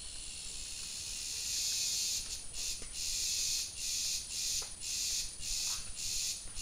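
A high-pitched insect buzz that swells over the first two seconds, then breaks into a run of short pulses separated by brief gaps.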